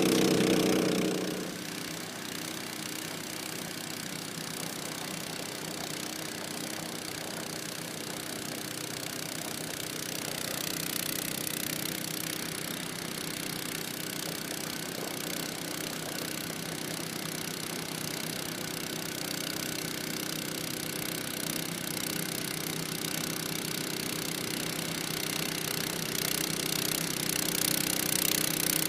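1989 Honda HS55 snowblower's engine running steadily. It is louder for about the first second, then settles to an even running sound that grows a little louder near the end.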